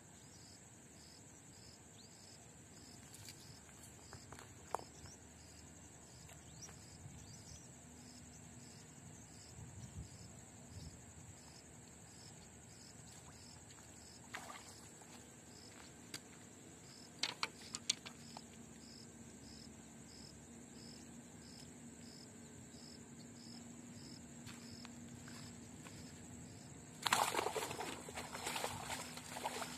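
Insects trilling steadily at a high pitch, with a regular pulsing chirp. A few sharp clicks come midway, and near the end a loud burst of rustling and crackling as shoreline vegetation is pushed through by hand.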